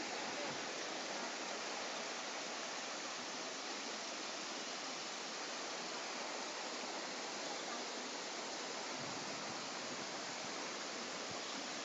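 Shallow stream flowing over a sloping rock bed: a steady, even rush of water.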